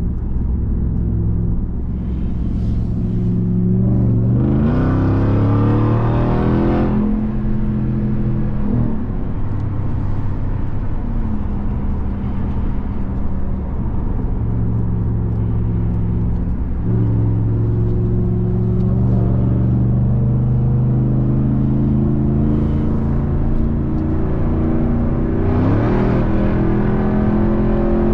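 2021 Ram 1500 TRX's supercharged 6.2-litre Hemi V8 running while the truck is driven. It holds a steady pitch at cruise and climbs in pitch under acceleration twice: once about four seconds in, and again near the end.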